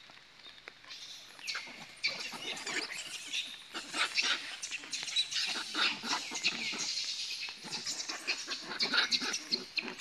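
Young macaques squealing and chattering: many short high-pitched calls that overlap and get busier about two seconds in, with a couple of falling squeals near the start.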